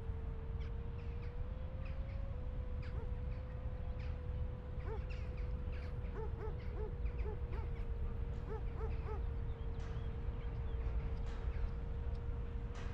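Birds calling in short, repeated, clustered calls over a steady low rumble and a faint continuous hum that steps slightly in pitch about two seconds in.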